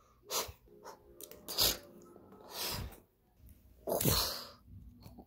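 Breathy mouth-made sound effects for a toy monster fight: about five short hissing, huffing bursts, two of them falling in pitch.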